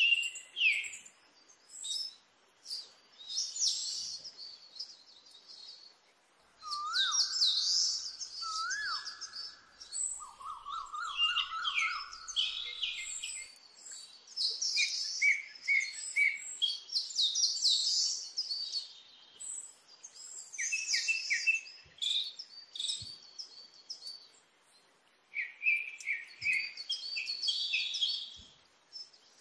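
Birds chirping and singing, many short calls overlapping, with a few whistles that swoop up in pitch now and then.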